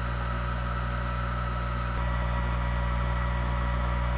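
Steady mechanical hum of a diode laser engraver's air-assist pump and fans running while the laser cuts plywood. The low hum gets slightly louder about two seconds in.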